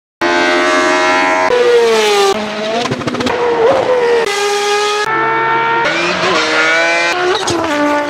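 A rapid montage of racing-car engines at high revs, cut together in snatches of one to two seconds each, the pitch rising and falling through gear changes, with a burst of rapid crackling about three seconds in.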